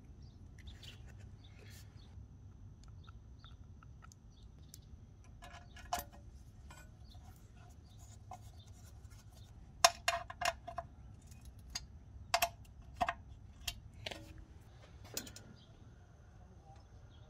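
Scattered light clicks and metallic clinks from small engine parts being handled around a valve cover and rocker arms, with a run of sharper, louder taps in the second half. A faint steady hum underneath.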